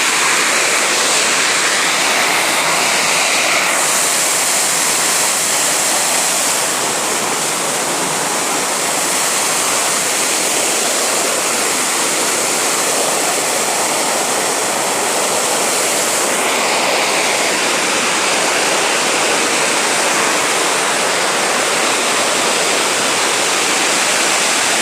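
Loud, steady rush of water falling at Spread Eagle Falls, a wide waterfall. The hiss grows brighter about four seconds in and duller again a little past the middle.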